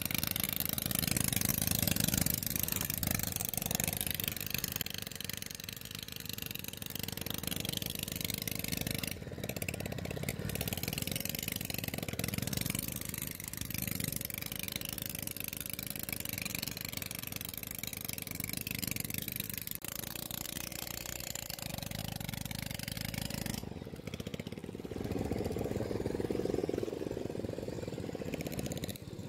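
A small engine running steadily, with water splashing as hands grope through shallow muddy water.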